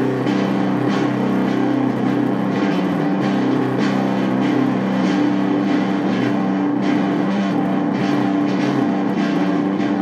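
Stratocaster-style electric guitar, plugged in and played in a rock style: sustained notes and chords ring on, with sharp strummed attacks every second or so.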